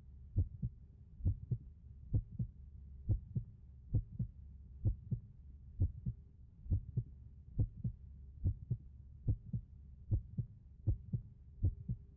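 Heartbeat sound effect: paired low thumps repeating a little under once a second, over a steady low hum.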